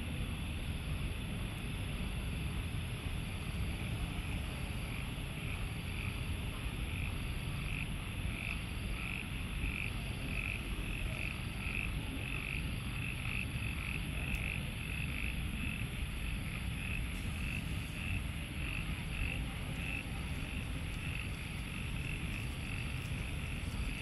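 Frog calling after rain, a short high croak repeated about two times a second, over a steady low rumble.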